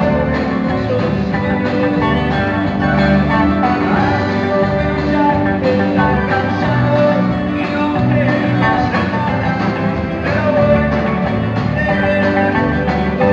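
Live band music: electric guitar and a singing voice over a full band, amplified through the venue's sound system.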